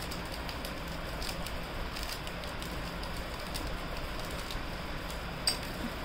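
Faint crinkling and light clicks from small metal jewellery and plastic packing being handled, over a steady hiss, with one sharper click about five and a half seconds in.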